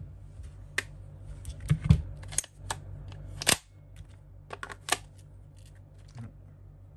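Irregular plastic clicks and knocks of a GHK G5 gas-blowback airsoft rifle and its gas magazines being picked up, handled and set down, with one louder knock about halfway through.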